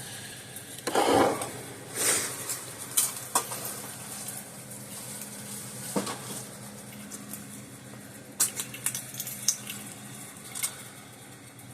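Handling noise on a workbench: scattered sharp clicks and light clatter of hard plastic and metal parts being moved, with two short scrapes early and a quick run of clicks near the end, over a faint steady low hum.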